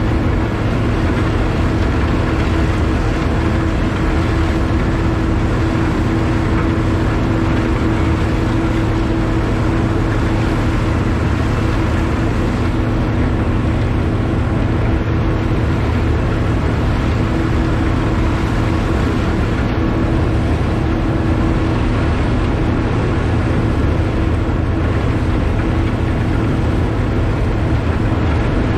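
Heavy diesel engines and a snowblower running steadily while snow is blown into a dump truck: a constant engine drone with a steady low hum and an even rushing noise.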